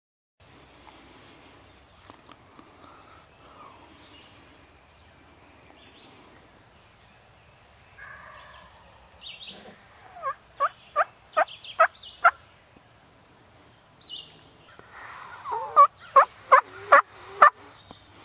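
Wild turkey calling: a series of about seven loud, evenly spaced notes, then after a short pause a second, louder series of about five, each at roughly two to three notes a second.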